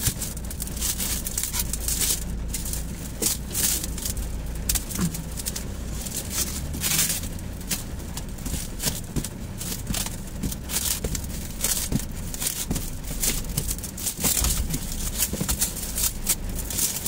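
Black plastic stretch film crackling and rustling as it is pulled off the roll and wound tightly around a box, in a steady run of irregular crinkles and snaps.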